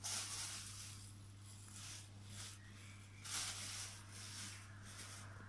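Clear plastic bags crinkling as they are handled and pulled open, louder right at the start and again a little past three seconds in, over a faint steady low hum.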